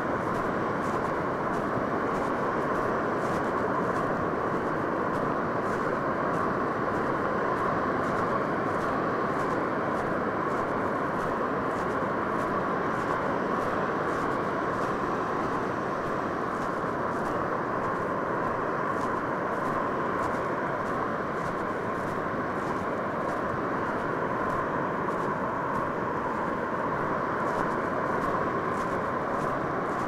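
Steady, even roar of ocean surf breaking along a sandy beach.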